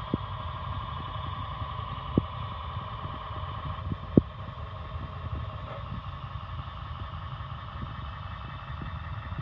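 Large-scale model train locomotive running along the track: a steady whine from its motor and gears over a low rolling rumble of the wheels and cars. Irregular clicks come from the wheels on the track, the sharpest about two seconds and four seconds in.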